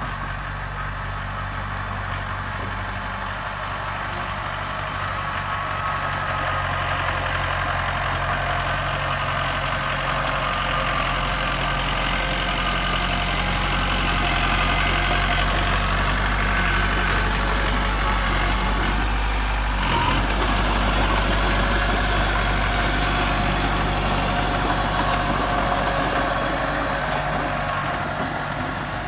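Heavy diesel engine of earthmoving machinery running steadily, growing louder from a few seconds in and easing off near the end. There is one sharp knock about two-thirds of the way through.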